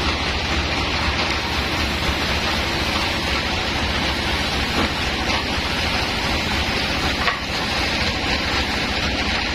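Woodworking machinery running steadily with a dense noise and a low hum, and one brief knock about seven seconds in.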